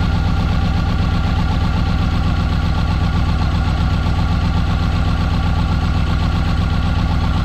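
Subaru EJ20 flat-four engine idling steadily while it has a misfire.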